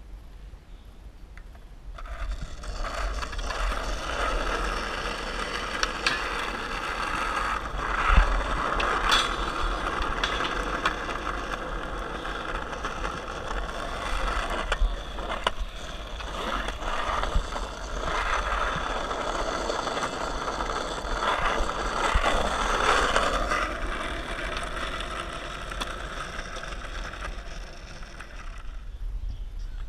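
Skateboard wheels rolling over pavement: a steady gritty rolling noise that starts about two seconds in and fades near the end, with a few sharp clacks of the board along the way.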